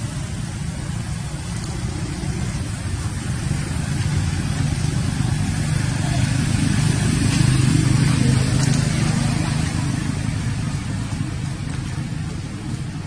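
A motor vehicle's engine running nearby, a low rumble that grows louder to a peak a little past halfway and then eases off, as of a vehicle passing.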